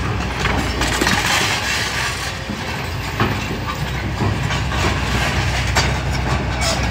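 Kobelco excavator's diesel engine running steadily, with rattling and scraping of sand, gravel and stone, a heavier gritty rush about a second in and a few sharp knocks later on.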